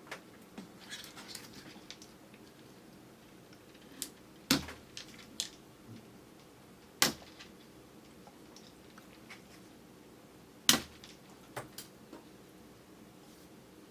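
Eating sounds of chewy kyoho grape jelly, picked up by a camera's built-in microphone: sparse sharp wet clicks and smacks, three loud ones a few seconds apart with softer ticks between.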